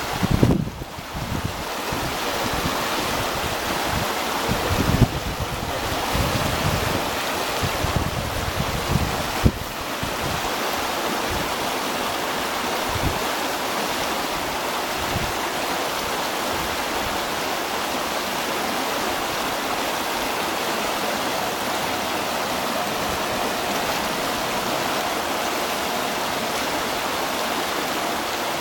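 White water rushing and splashing down the steps of a fish ladder, a steady rushing noise throughout. Wind gusts thump on the microphone in the first ten seconds.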